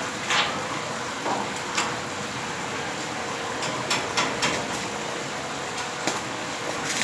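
Electric arc welding: a steady crackling hiss with a few sharp pops scattered through it.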